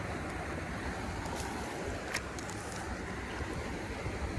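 Wind buffeting the microphone over the steady rush of creek water, with a couple of faint clicks about a second and a half and two seconds in.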